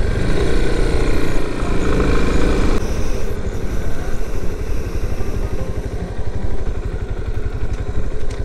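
Yamaha Serow 250's air-cooled single-cylinder engine running as the bike is ridden, with a steady engine hum that eases into a rougher, lower rumble about three seconds in.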